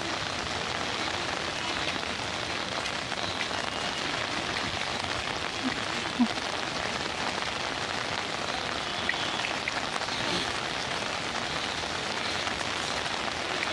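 Steady heavy rain falling on stone paving and garden, a constant even hiss, with one brief sharp knock about six seconds in.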